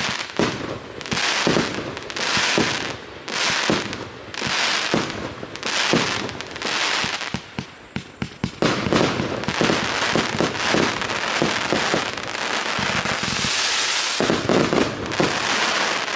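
A 288-shot consumer firework cake of 1-inch tubes firing, each launch followed by bursting stars with crackling, about one volley a second. About halfway through, the shots come thick and fast with continuous crackling, the cake's finale.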